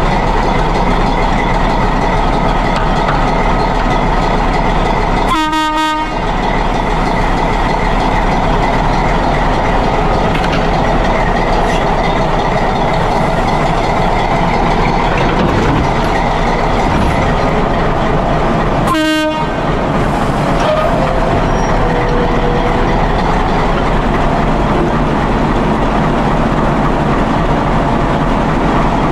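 Passenger train running along the track: a steady, loud rumble of wheels and carriages on the rails, with faint steady tones above it.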